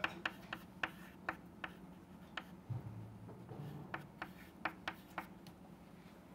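Chalk on a chalkboard as small numbers are written: a string of sharp, irregular taps, several a second, that stops about five seconds in.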